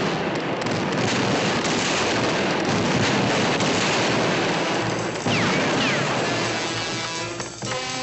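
Cartoon sound effects: a dense, sustained crackling clatter like a prolonged crash or volley of explosions, with two short falling whistles about five seconds in, then music notes near the end.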